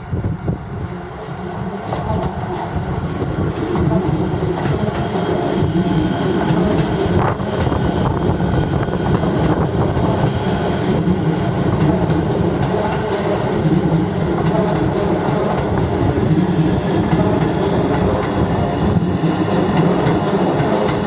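Keio 9000 series electric commuter train running past a level crossing, a steady rumble of wheels on rail that builds over the first few seconds and then stays loud.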